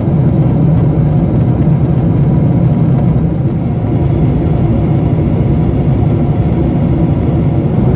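Steady low drone inside the cabin of an Airbus A350-1000 airliner in flight: engine and airflow noise, even throughout.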